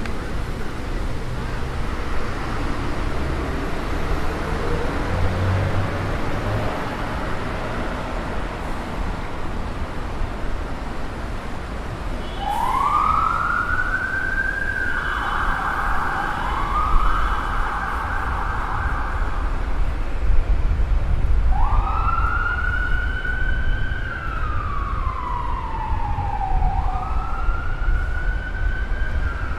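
Emergency vehicle siren sounding a slow wail, its pitch rising, holding and falling over several seconds, starting about halfway through over steady traffic noise.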